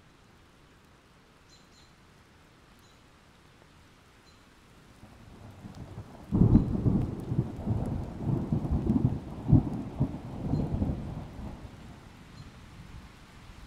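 Thunder over steady rain: a low rumble builds about five seconds in, breaks into a loud crash a little past the middle, rolls on in several peaks and fades near the end, with a faint hiss of rain throughout.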